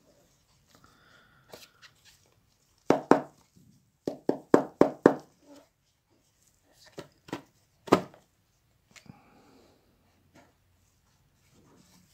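Gloved hands handling a cardboard earphone box and its plastic insert tray: sliding and tapping, with a quick run of about five knocks between four and five seconds in and a sharp knock near eight seconds.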